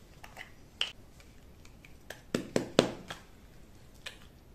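Sharp plastic clicks and pops from a small plastic jar of glitter slime as its screw lid is twisted off and the slime is pulled out of the jar. The three loudest come in quick succession a little past the middle.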